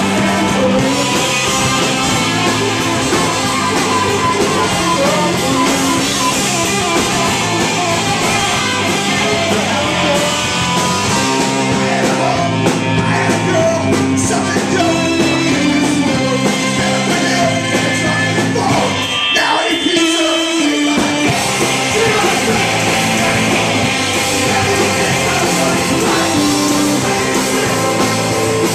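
Live rock band playing loud and fast, with electric guitar, bass guitar, drum kit and sung lead vocals. About two-thirds of the way through, the bass and drums drop out for about two seconds, then the full band crashes back in.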